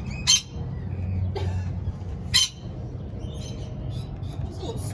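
Lorikeets screeching: two short, sharp shrieks about two seconds apart, with fainter chirps in between, over a low steady rumble.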